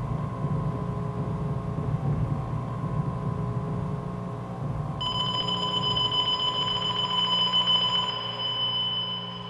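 A steady low droning hum. About halfway through, a high, steady ringing tone starts abruptly alongside it, holds, and begins to fade near the end.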